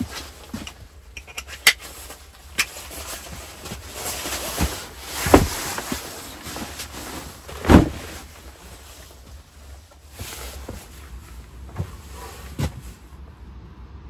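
A large backpack being handled and set down on a blanket-covered wooden plank bunk: rustling fabric and straps, scattered knocks and clicks, and two heavier thumps about five and eight seconds in, over a steady low rumble.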